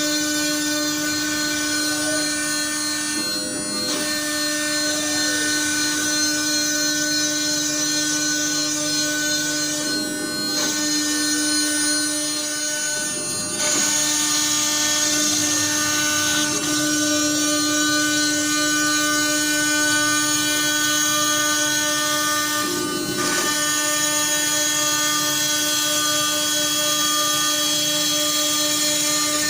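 MINIMO 6090G CNC milling router running and cutting: a steady spindle whine with machine hiss. Its tone shifts briefly about four times as the machine changes its motion.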